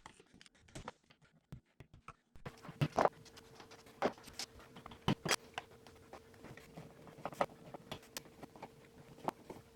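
Scattered small clicks and taps of a screwdriver and hands removing a wall outlet's cover plate. A faint steady tone sets in after about two and a half seconds.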